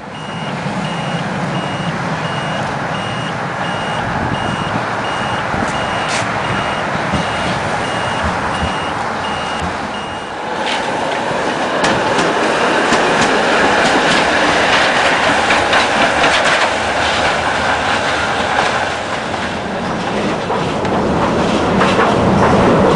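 Tram running on street track: a steady rolling noise that grows louder from about ten seconds in, with scattered wheel clicks over the rails. A regular high beeping repeats through the first ten seconds.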